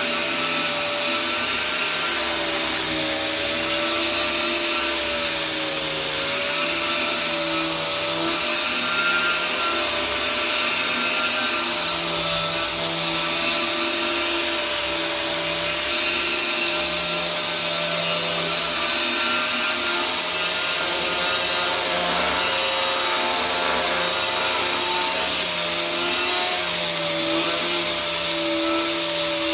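Electric power sander running steadily on walnut, its motor tone wavering slightly in pitch as it is pressed and moved over the wood: sanding the bare sign before oiling.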